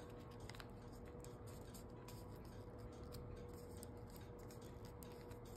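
Faint handling of origami paper being folded and creased by hand, with scattered small ticks and rustles, over a faint steady hum.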